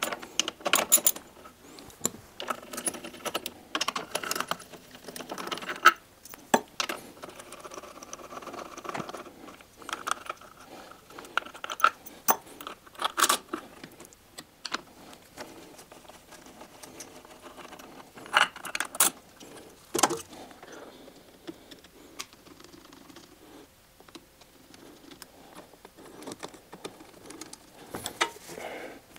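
Metal tools and parts clicking and clinking as the round air filter housings are unbolted from the twin carburettors with a socket driver and lifted off. Irregular sharp clicks, a few of them louder.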